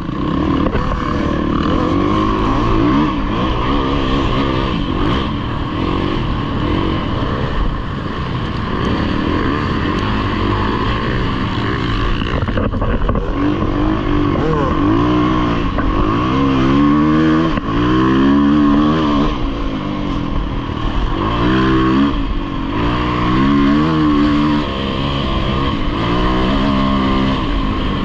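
Yamaha dirt bike engine running hard under race load, its revs repeatedly climbing and dropping as the rider rolls on and off the throttle and shifts, quickest and most pronounced through the second half.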